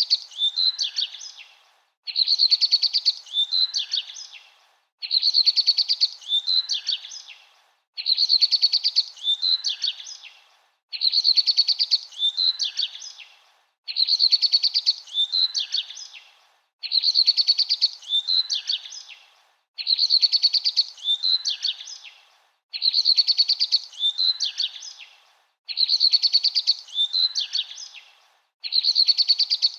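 A short bird song phrase of quick chirps and a trill, repeated identically about every three seconds with a brief silence between repeats, as a looped recording.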